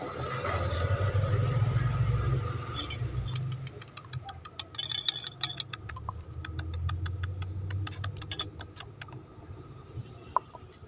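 Low engine rumble from a passing motor vehicle, swelling twice, with a quick run of sharp clicks and taps in the middle.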